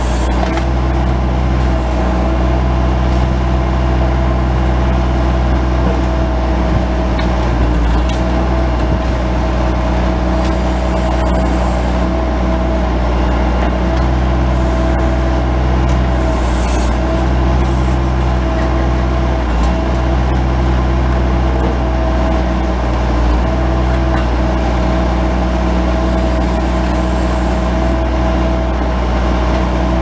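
Bobcat S185 skid-steer loader's turbocharged diesel engine running steadily while it powers a 911 backhoe attachment digging, with a steady whine over the engine note.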